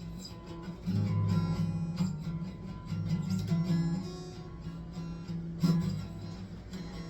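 Guitar music without singing: an instrumental passage of strummed and picked chords.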